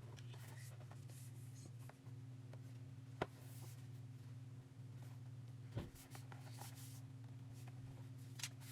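Faint handling sounds: light rubbing and rustling with a few small clicks, one sharp click about three seconds in and a duller knock just before six seconds, over a steady low hum.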